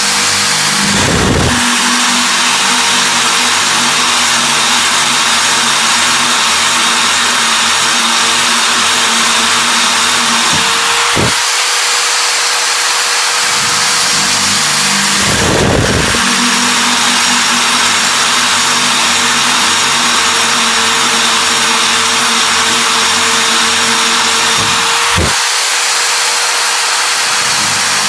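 Power drill running with a brazed diamond core bit, grinding hole after hole in hard material: a steady harsh grinding hiss over a motor tone, with a sharp break about every fourteen seconds.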